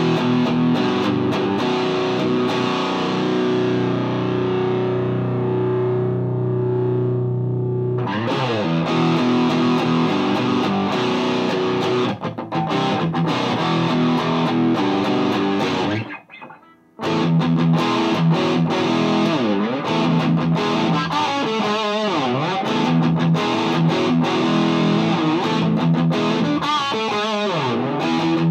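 Distorted electric guitar from a Gibson Les Paul through a Mesa Boogie Dual Rectifier set to full power with diode rectification, into a Marshall 1960A 4x12 cab. A chord rings out for about eight seconds, then riffing with chugging chords, stopping briefly about sixteen seconds in before starting again.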